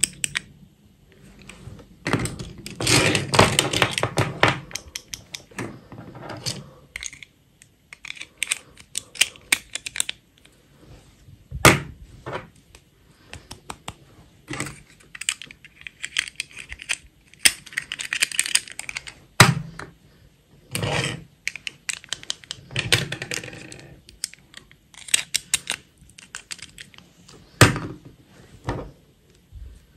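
Small plastic dolls and their soft plastic snap-on dresses handled by hand: irregular clicks and taps, with short bursts of scratchy rustling as dresses are pulled off and dolls are set down on a table.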